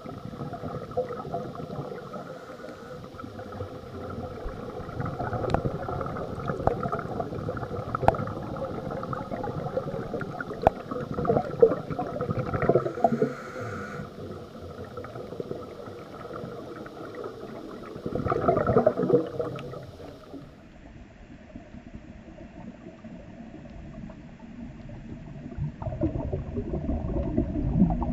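Underwater sound through a camera housing: scuba regulator breathing with bursts of exhaled bubbles gurgling up, two louder bubble bursts lasting a couple of seconds each, one in the second half and one building near the end.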